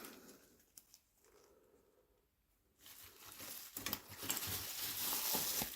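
Near silence for about three seconds, then rustling of packaging with small clicks and knocks as items are handled and taken out of a parcel.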